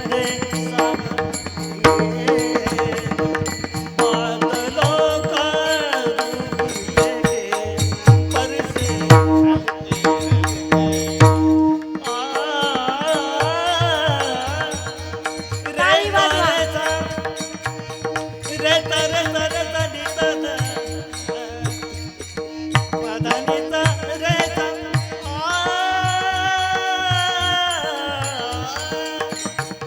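Marathi kirtan devotional music: a high voice sings a melodic line over a steady drone, with a drum keeping rhythm.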